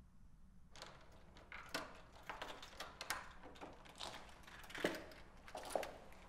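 Keys and a door lock clicking and rattling as a front door is unlocked, with a heavier knock near the end as the latch gives and the door opens.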